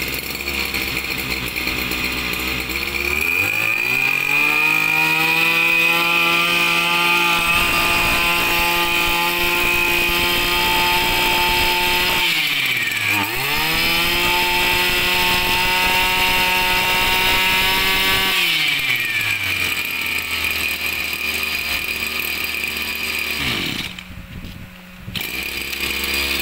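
Tanaka 27cc two-stroke backpack brush cutter engine idling, then revved up to full speed for about fifteen seconds with one brief dip in the middle, then dropping back to idle.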